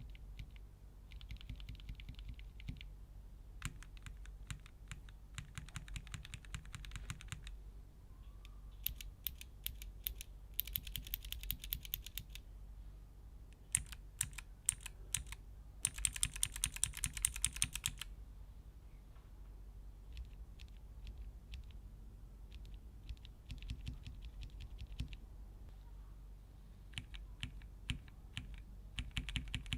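Keychron K Pro mechanical keyboard being typed on for a switch sound test: rapid runs of key clicks, each run lasting a second or two with short pauses between, the loudest and densest run a little past halfway.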